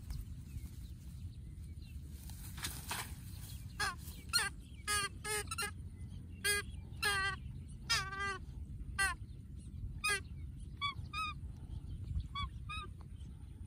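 Birds calling, a run of short honking calls with a wavering pitch that starts about four seconds in and thins out near the end, over a steady low rumble.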